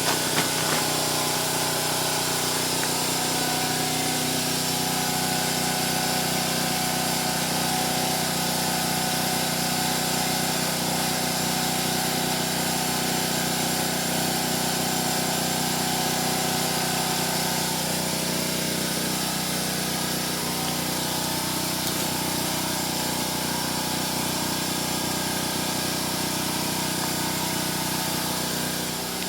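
A steady mechanical hum with hiss, a motor running continuously at constant speed, with a few light clicks right at the start.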